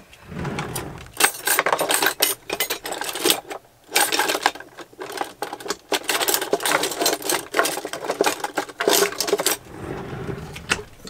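Utensils and glass jars clattering in a kitchen drawer as it is rummaged through: rapid rattling and clinking for several seconds that dies down near the end.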